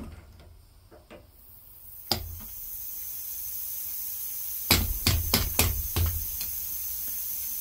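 Metal hand tools knocking and clinking against the yard tractor's front steering parts: a single click about two seconds in, then a quick cluster of about five sharp knocks a little past the middle, over a faint steady hiss.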